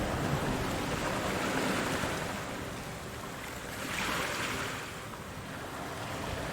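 Ocean surf washing in, a steady rush of water that swells twice as waves come in.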